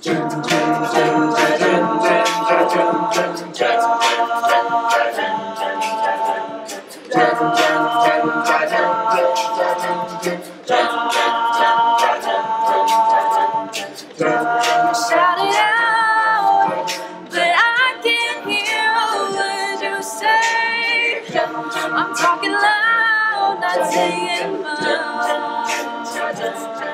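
Mixed a cappella group singing wordless sustained chords in several voice parts, the chord changing every three to four seconds. From about halfway a solo voice sings a gliding melody above the chords.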